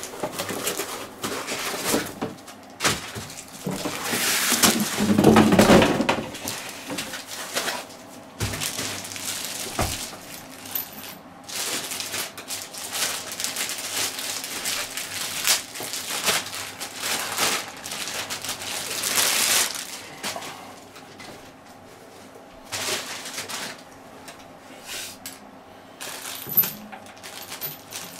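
Unpacking a studio monitor: cardboard box and foam packing rustling and scraping as the speaker is lifted out, and a plastic bag crinkling loudly as it is pulled off. Scattered small clicks and knocks as hard parts are handled and set down.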